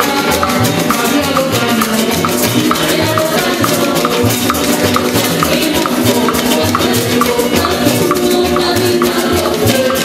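Trinidadian parang band playing a fast beat: a cuatro strummed over a bass line, with maracas shaking in a quick even rhythm and a hand drum.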